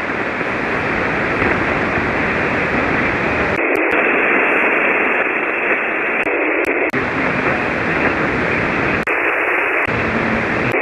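Shortwave receiver on 40-meter single sideband giving a steady, loud rush of band noise with no readable voice: the calling station has faded down into the noise. A few faint clicks.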